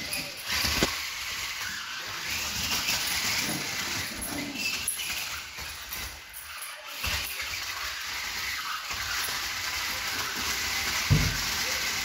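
Small remote-control stunt car's electric motor whirring as it drives, with a thump about a second in and a louder one near the end.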